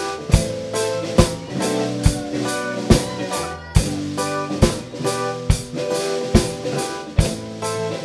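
Live rock band playing: a drum kit keeps a steady beat, with a strong hit a little under once a second, under held chords from electric guitars and keyboard.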